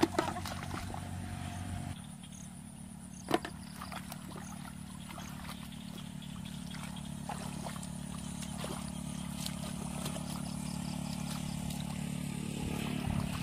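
An engine running steadily as a low hum, its pitch shifting up about two seconds in, with a sharp knock about three seconds in and scattered faint clicks.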